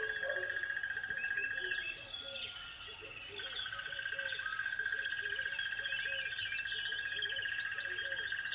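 Birds chirping over a steady high trill that breaks off for about a second and a half a couple of seconds in, with repeated short low calls underneath.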